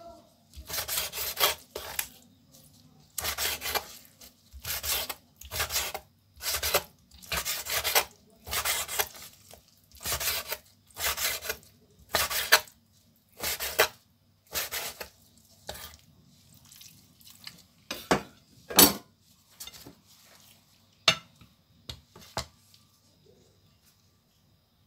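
Kitchen knife slicing raw chicken into strips on a wooden cutting board: a long run of even strokes, a little over one a second, each a cut ending on the board. After that come a few louder separate knocks.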